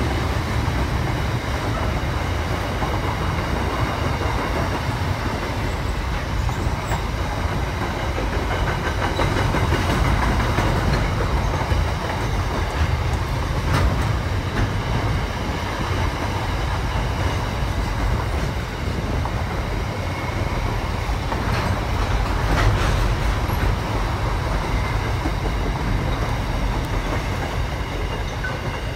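Freight train's container wagons rolling past, a steady rumble of steel wheels on the rails with a few sharp clacks as the wheels run over the rail joints.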